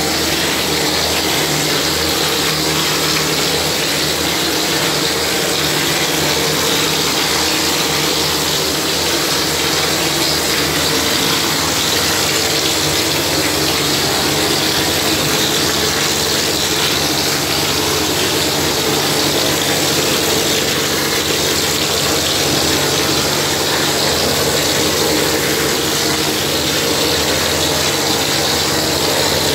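Plaster spraying machine applying gypsum plaster through a hand-held spray lance: a loud, steady hiss of compressed air and wet plaster hitting the wall, over the steady low drone of the machine.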